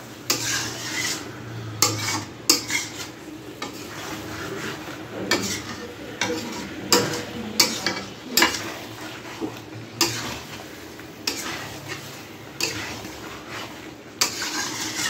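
A spatula scraping and knocking against a metal kadai as chicken and potatoes in a thick masala are stirred, in irregular strokes about once a second, over the sizzle of the frying masala.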